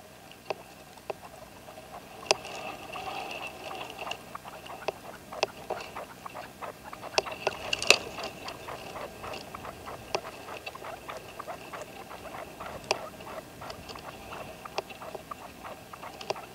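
Caged decoy red-legged partridge calling: a long, rapid run of short clicking and chattering notes, with louder sharp notes scattered through it.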